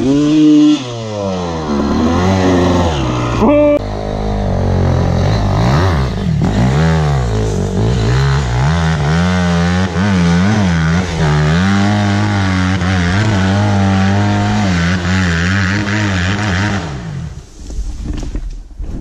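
Honda CR250R's two-stroke single-cylinder engine, revved up and down again and again as the throttle is worked, then dropping away near the end.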